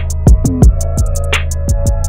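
Electronic hip-hop-style backing music with a heavy beat: quick, even hi-hat ticks, deep bass kicks that fall in pitch, and a snare hit at the start and again about one and a half seconds in, over a steady deep bass.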